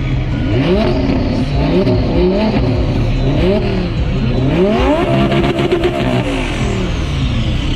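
A car engine revving repeatedly, its pitch climbing and dropping back about five times, then held high for a moment before falling away.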